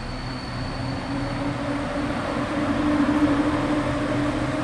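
An EP07 electric locomotive hauling passenger coaches passes close by, its running noise and low hum growing louder. The hum edges slightly up in pitch, and the sound is loudest about three seconds in.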